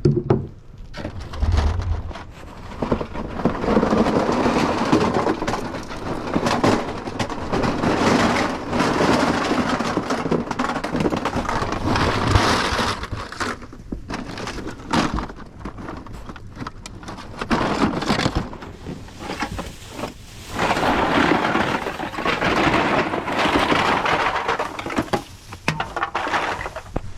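Crushed aluminum cans being poured out, a dense clattering rattle in several long spells with short pauses between them.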